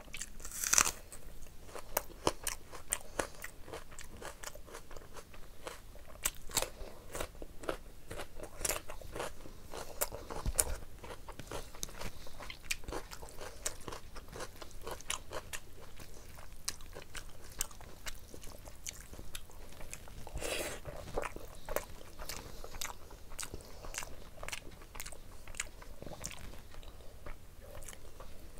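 Close-miked wet chewing and mouth clicks of a person eating rice and chicken curry by hand: many short smacks and crunches. There is a louder burst about a second in and another about twenty seconds in.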